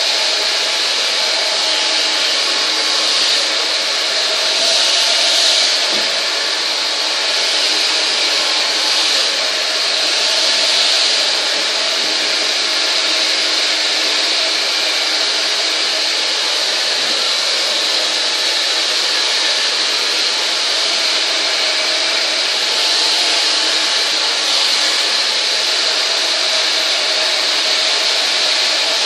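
Handheld hair dryer running steadily, blowing air through long hair during a blow-dry, swelling a little now and then as it is moved.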